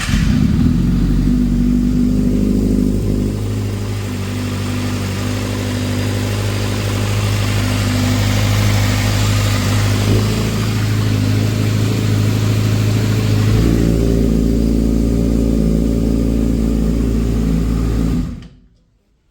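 Kawasaki ZX-6R's inline-four engine running after starting, its tone shifting about four seconds in and again near fourteen seconds, then switched off near the end. No timing chain rattle: the cam chain tensioner has just been reset, and the engine is as silent as it can be.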